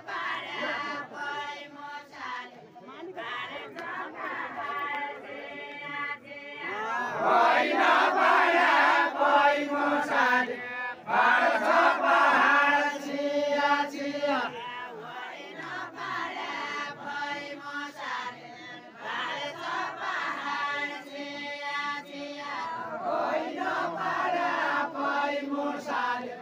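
A group of voices chanting a Deuda folk song together, in drawn-out phrases with held notes. The singing grows louder about a quarter of the way in and falls back about halfway through.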